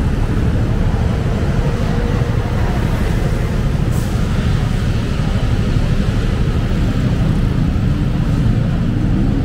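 Loud, steady road traffic: vehicle engines running and passing, with the pitch of one engine rising near the end. A short sharp click about four seconds in.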